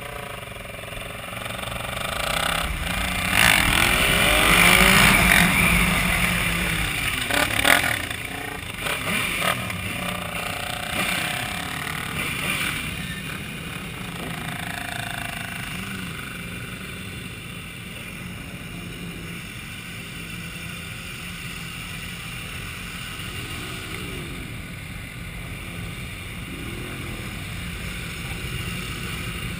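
Sport-bike engine accelerating, its pitch rising and falling, loudest a few seconds in. It then runs steadily at low speed among other motorcycles, with a few short revs near the end.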